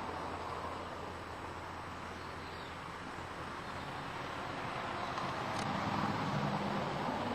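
Steady rushing noise with a low hum underneath, a little louder near the end.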